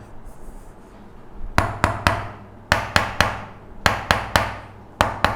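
Sharp knocks in quick runs of two to four strikes, the runs repeating about once a second.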